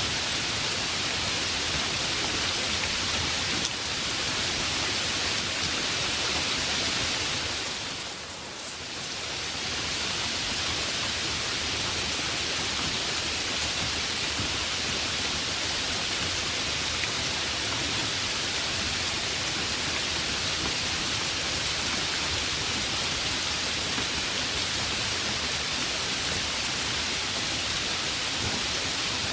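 Heavy rain falling steadily as an even hiss, with a brief dip in loudness about eight seconds in.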